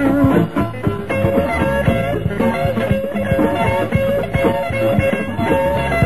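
Live electric blues band playing an instrumental break: electric guitar lines over bass and a steady beat.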